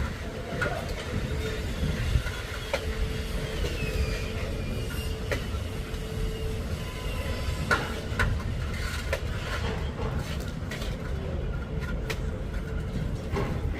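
Construction-site noise during facade plastering: a steady low rumble with scattered short knocks and clicks.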